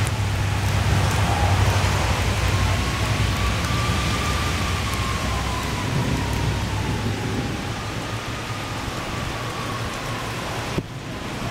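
Heavy rain pouring steadily, with a low rumble of thunder that fades out about two-thirds of the way through.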